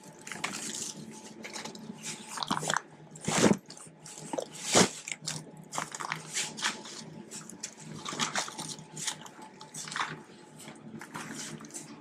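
Irregular crinkling and rustling of takeaway bags being handled and packed, with a few sharper knocks, over a faint steady hum.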